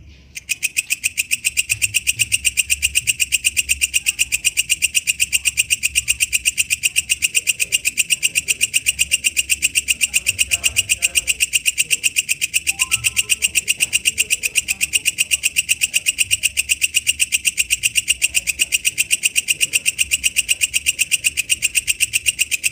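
Walang kecek katydid calling: a loud, fast, even train of buzzy clicking pulses, several a second, starting abruptly about half a second in.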